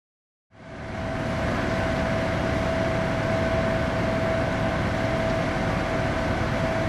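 Work trucks with suction hoses running steadily: engine rumble under a constant, even whine from their pump machinery. It fades in during the first second.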